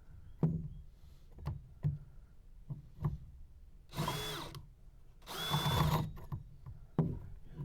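Power drill run in two short bursts about a second apart, each with a steady high whine, drilling holes. Scattered light knocks and clicks come before and after.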